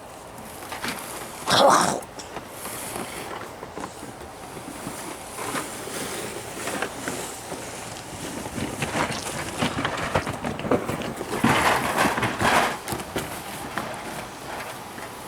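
Irregular clatter and rustling of junk being handled and moved about. There is one loud clatter about a second and a half in, and a busier run of knocks near the end.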